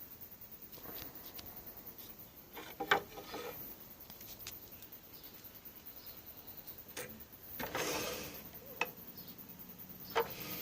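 Scattered light clicks and knocks, with a short rubbing rustle a little before eight seconds in; no motor is running.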